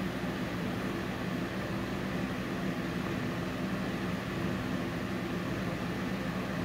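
Steady hum and whir of a running motor, like a room fan or air conditioner, with an even hiss and no other events.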